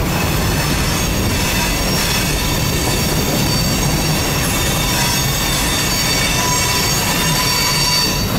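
Freight cars, boxcars and gondolas, rolling past with a steady heavy rumble of steel wheels on the rails. Thin, high-pitched wheel squeal sounds over it, several tones coming and going.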